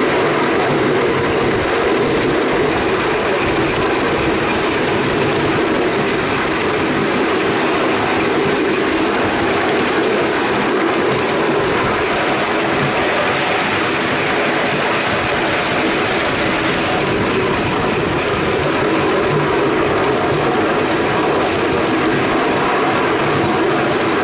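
5-inch gauge live steam Duchess class model locomotive running along the track under way, heard from the footplate: a steady, loud running noise of the engine and its wheels on the rails.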